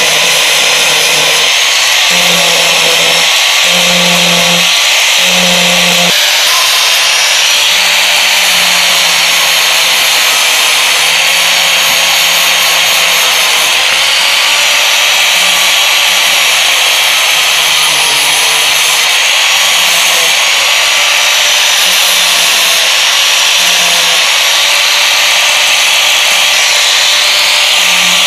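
Angle grinder with a sanding disc running continuously, sanding a wooden knife handle. The motor's pitch wavers slightly under a dense, hissing grind.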